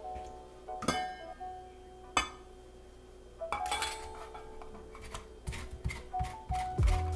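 Metal clinks and scrapes of a handheld rasp zester knocking against a stainless steel bowl, a few at first, then in quick succession near the end as an orange is zested over the bowl, under background hip-hop music.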